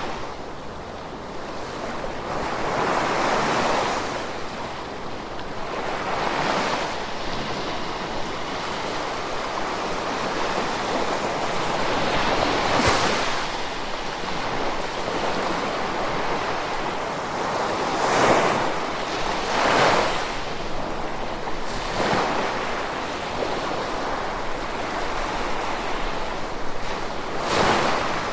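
Gentle ocean waves washing ashore, a steady hiss of surf that swells as each wave breaks, every few seconds.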